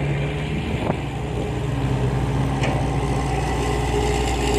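Heavy machinery's diesel engine running steadily, with a couple of short knocks.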